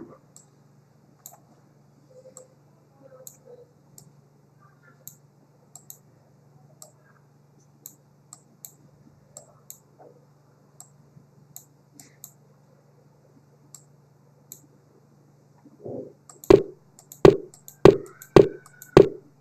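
Computer mouse clicking every second or so over a steady low hum, then five loud knocks about half a second apart near the end.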